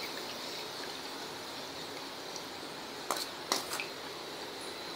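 Hot frying oil sizzling faintly and steadily, with a few sharp metal clicks about three seconds in as a steel spoon knocks against a perforated steel strainer holding fried raisins.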